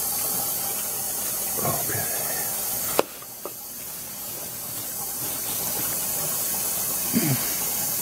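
Dishwasher filling with water: a steady hiss of water flowing in. A sharp click comes about three seconds in, after which the hiss dips and slowly builds back up.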